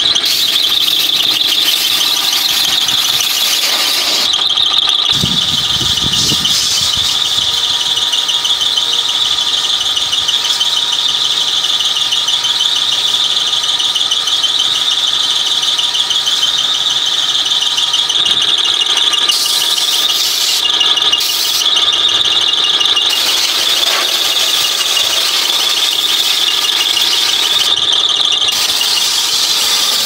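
Compressed-air blow gun held open, a loud, steady, high-pitched hiss as it blows dirt and debris out through a car radiator's fins. The top of the hiss dips briefly a few times.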